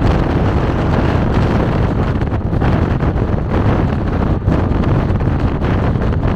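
Steady road and wind noise of a car driving at highway speed, with wind buffeting the microphone.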